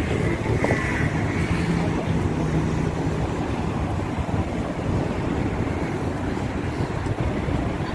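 Steady rumbling city ambience with wind buffeting the microphone.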